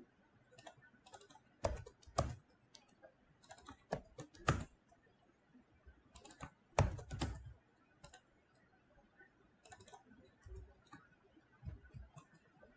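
Computer keyboard typing in short, irregular bursts of a few keystrokes at a time, with pauses between them.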